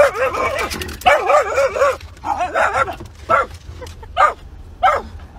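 A dog howling and whining in warbling bouts, the pitch wobbling rapidly up and down, then breaking into a few short yelps about three seconds in.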